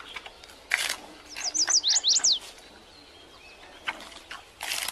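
A quick run of about eight high, chirping calls, each sweeping down in pitch, lasting about a second. A short noisy burst comes just before it, and another near the end.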